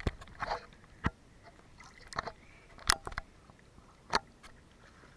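Hand handling a camera held in a swimming pool: fingers rubbing and knocking on the camera body, with a few sharp knocks, the loudest about three seconds in.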